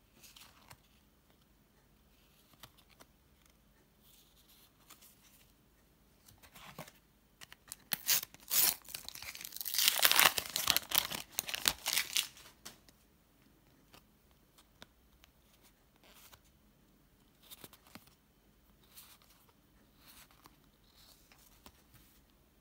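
A Panini sticker packet is torn open and its wrapper crinkled in a loud burst lasting a few seconds, about eight seconds in. Before and after it, soft flicks and rustles of stickers being handled and slid through the fingers.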